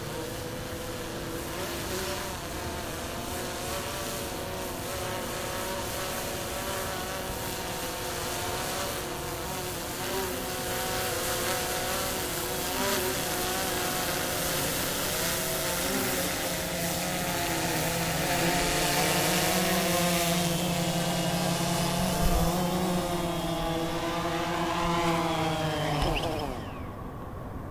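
DJI Phantom 2 quadcopter's motors and propellers buzzing in flight, the pitch wavering and the sound growing louder as it comes down. Near the end it lands and the motors spin down: the whine drops quickly in pitch and stops.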